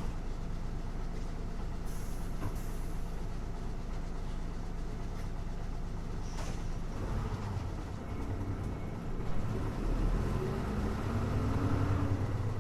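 Hino Blue Ribbon city bus's diesel engine idling steadily at a stop, then pulling away about seven seconds in, its note rising as it accelerates. A brief hiss comes just before it moves off.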